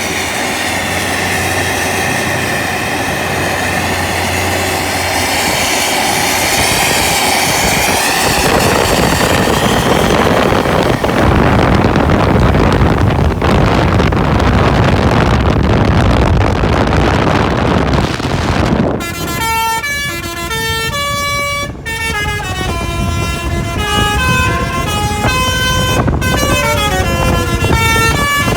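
Intercity bus passing with a loud rush of engine and road noise, then, about two-thirds of the way in, its telolet Basuri multi-tone air horn playing a melody of separate held notes stepping up and down with short gaps.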